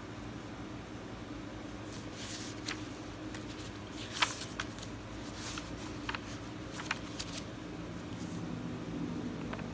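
Pages of a paperback comic book being turned and handled by hand: a run of short paper rustles and flicks, the sharpest about four seconds in.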